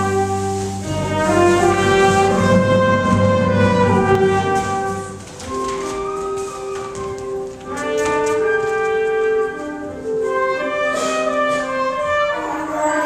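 Instrumental music: held chords over a low bass note that drops out about five seconds in, followed by a moving melody over sustained notes.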